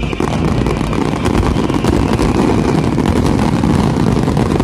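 Fireworks finale barrage: many shells bursting in quick succession, merging into a continuous loud rumble with dense crackling throughout.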